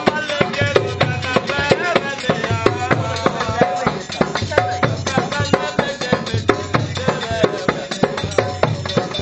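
Upbeat Punjabi-style dance song: a singing voice over a fast, dense drum and percussion beat.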